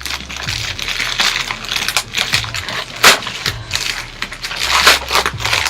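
Packaging being crinkled and torn open by hand: irregular crackling and rustling, loudest about three seconds in and again near the end.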